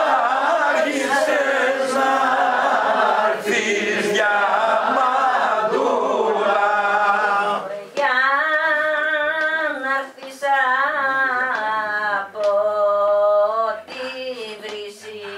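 Unaccompanied Greek folk singing: a group of voices sings a line together, then about halfway through a single woman's voice carries the next phrases alone, her pitch bending and ornamented, with short breaths between phrases.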